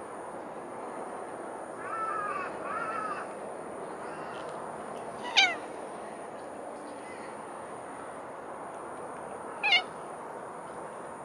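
Domestic cat meowing: two short, loud, falling meows, about five and a half and nearly ten seconds in, after two softer drawn-out calls around two seconds in.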